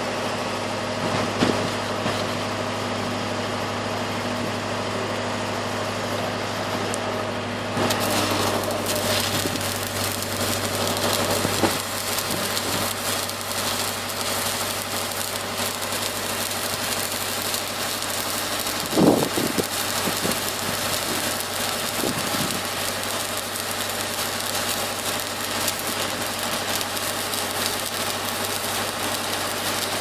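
Electric arc welding on a steel pipe sleeve: a dense, steady crackling hiss of the arc that starts about a quarter of the way in and runs on. Under it is the steady low hum of a running engine, and there are a few sharp knocks, the loudest just past the middle.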